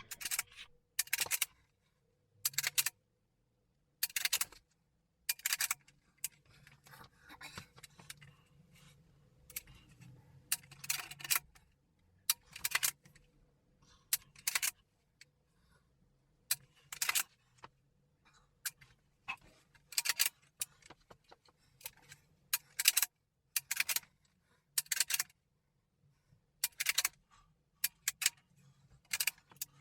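Sauer 200 STR bolt-action rifle dry-fired and worked through a drill: sharp metallic clicks of the bolt being cycled and the trigger snapping on an empty chamber, often two or three close together, every second or two. Fainter rustling of movement lies between the clicks.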